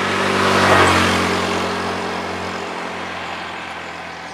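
A motor vehicle passing by: engine hum and road noise swell to a peak about a second in, then slowly fade away.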